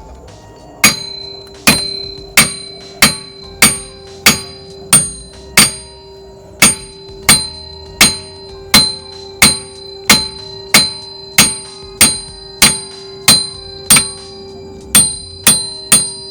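Hammer blows driving a stripped wheel stud out of a rear wheel hub, about one and a half strikes a second, each a sharp metal-on-metal hit. The hub rings with a steady tone between the blows.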